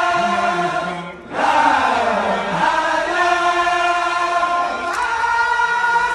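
Group of men chanting a Baye Fall devotional chant in chorus, holding long notes, with a short break about a second in before the voices come back in.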